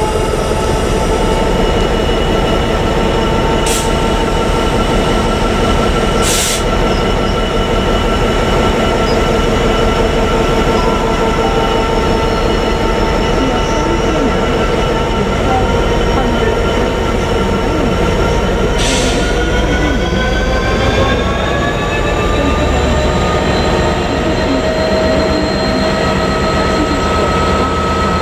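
Class 66 diesel locomotive's EMD two-stroke V12 engine running steadily, its pitch rising about two-thirds of the way through as the engine speeds up and holding at the higher speed. A few short hisses cut in over it.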